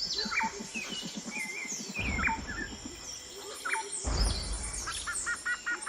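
Carcharodontosaurus sound effect: a low, pulsing rattle, then deep rumbles that start suddenly about two and four seconds in. Birds chirp throughout.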